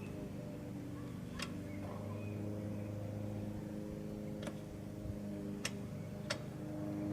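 A few sharp, separate metallic clicks, four or five over several seconds, of lug nuts and tools clinking as the wheel's nuts are taken off by hand, over a steady low hum.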